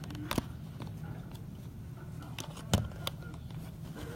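A steady low hum with a few sharp knocks or clicks, the loudest about three-quarters of the way through.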